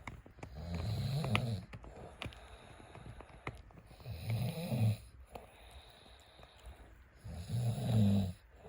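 A man snoring in deep sleep, three long snores about three and a half seconds apart. Faint sharp clicks between them come from a dog gnawing a bone-stick chew.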